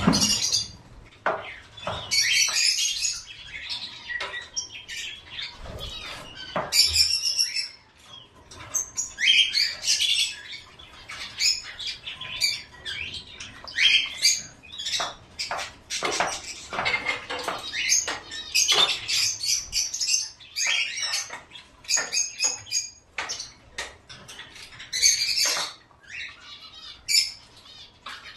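Small caged pet birds chirping and squawking in quick, repeated bursts, with short clicks and rustles among the calls.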